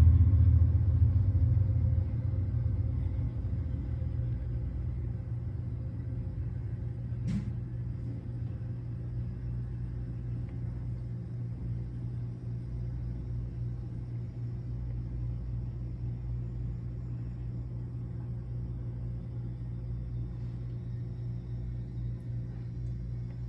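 Amtrak passenger train of Amfleet coaches rolling past, a low steady rumble that is loudest in the first two seconds and then settles, heard through window glass. A single sharp click about seven seconds in.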